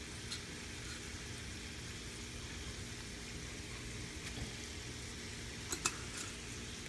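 Sliced green and yellow squash and onions sizzling steadily in olive oil in a skillet on a high burner. Near the end there are two light clicks as seasoning is shaken from a glass spice jar over the pan.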